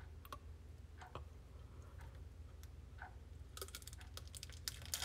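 Faint crinkling and clicking of a candy wrapper being handled and torn open: sparse at first, then a denser run of crackles about three and a half seconds in.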